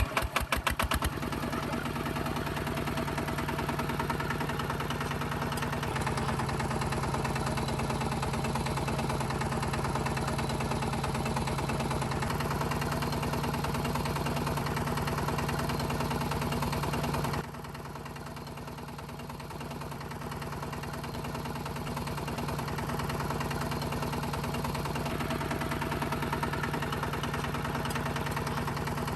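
Small motor of a miniature DIY tractor running steadily with a fast, even rattle. It stutters for the first second. About 17 seconds in it drops in level, then gradually builds back up.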